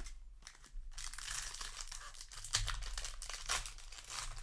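Foil wrapper of a Magic: The Gathering set booster pack crinkling and tearing as it is opened by hand, a dense crackle that starts about a second in.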